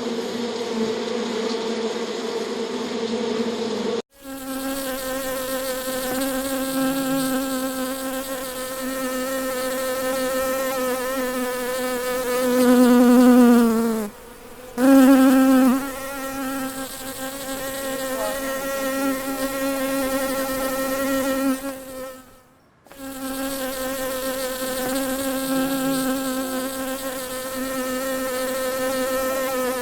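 Bee buzzing close by: a steady, pitched wing drone with a string of overtones. It swells louder and slides down in pitch about 13 seconds in, then breaks off briefly. The sound cuts out sharply twice more, about 4 and 22 seconds in.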